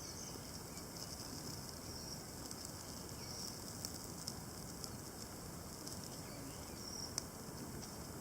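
Wood campfire crackling, with a few sharp pops over a steady low hiss; the loudest pop comes about seven seconds in. Faint, short, high chirps come now and then.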